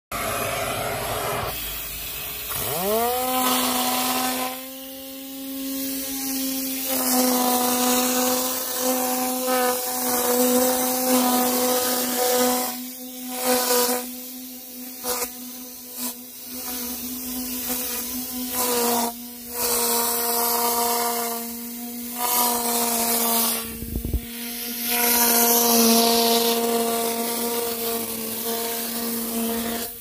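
Tornador Vac air-powered vacuum running: a steady buzzing tone that climbs quickly to pitch about three seconds in, under a rushing hiss of air and suction. The hiss thins out briefly several times as the nozzle works the carpet, while the buzz keeps going.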